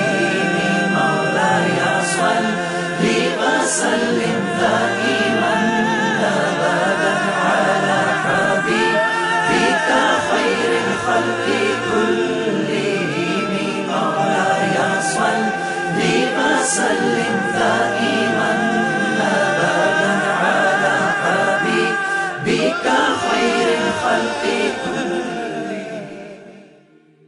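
Layered voices singing the naat melody a cappella, without instruments, in a choir-like texture. The singing fades out over the last two seconds or so.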